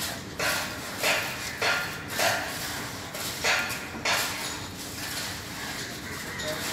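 Hand tools scraping through wet plain cement concrete as it is spread and levelled: six short scraping strokes at roughly half-second intervals, stopping after about four seconds.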